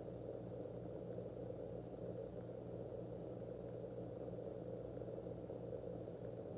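A steady mechanical hum with a low electrical buzz, like a small motor or ventilation unit running.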